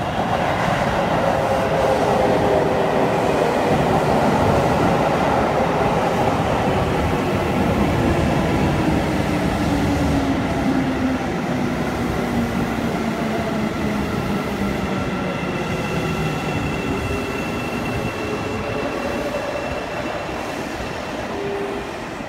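Seibu 9000 series electric train pulling into the platform and braking to a stop. Its running tone falls steadily in pitch as it slows and the rumble fades, and a thin high squeal rises in the last few seconds.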